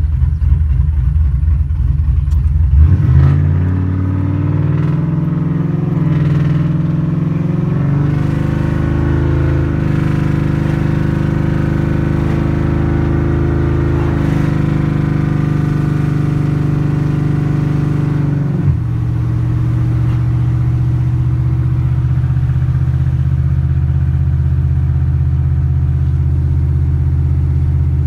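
Cammed 5.3 L V8 of a Chevrolet Silverado pickup, heard from inside the cab: a choppy, lumpy low-speed beat, then the truck accelerates hard about three seconds in and the revs hold high on the 3600-stall torque converter. About two-thirds in, the engine note drops suddenly to a lower steady cruising drone as the converter locks up.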